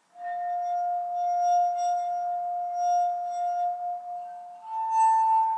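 Water-filled wine glasses sung by rubbing a wet finger around the rim. One glass gives a steady, pure ringing tone for about four and a half seconds, then a higher note from another glass takes over near the end.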